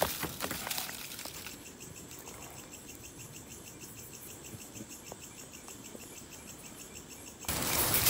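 Night insects chirping in a steady, rapid pulse, with a few faint handling clicks in the first second or so. A sudden louder rustling cuts in near the end.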